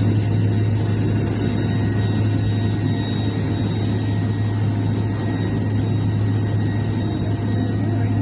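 An engine running steadily, with a constant low hum under a noisy rush.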